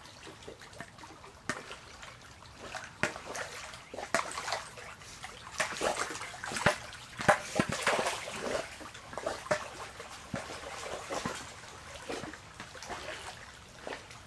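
Labrador retriever swimming in a pool: irregular splashing and sloshing of water from its paddling, busiest about midway.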